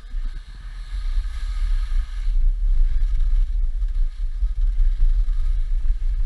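Wind buffeting the microphone in a heavy, uneven low rumble, over a steady hiss of skis sliding on snow during a downhill run.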